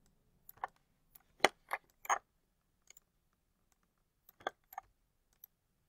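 A handful of faint, separate computer mouse clicks, the loudest about a second and a half in. They come in two small groups, a cluster near the middle and a pair later on, as the mouse button is pressed and released.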